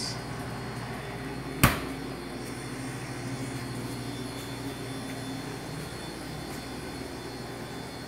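Steady hum of commercial kitchen machinery, with one sharp knock about two seconds in.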